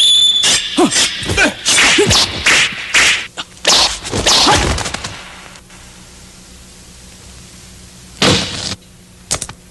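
Film fight sound effects of a sword duel: a rapid run of sword swishes and whacks for about five seconds, then a single swish a little past eight seconds and two quick clicks near the end.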